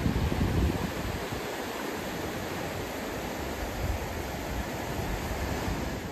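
Ocean surf washing steadily over a rocky cobble beach, with gusts of wind buffeting the microphone during the first second.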